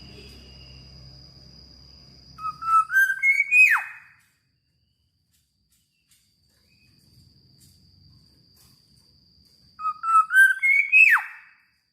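Black-naped oriole singing two fluty whistled phrases: each a quick run of notes stepping upward in pitch and ending in a sharp downward swoop.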